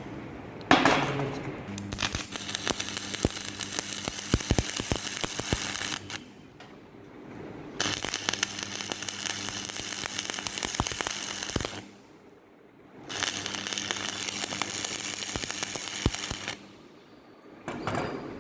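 Shielded metal arc (stick) welding with a 3 mm electrode on a 150-amp machine: the arc crackles and sizzles in three runs of a few seconds each, with short breaks between. A steady low hum sounds underneath.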